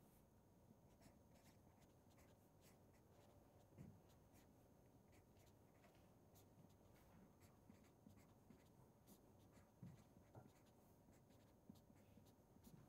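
Faint scratching and ticking of a felt-tip marker writing on paper, in short irregular strokes over quiet room tone.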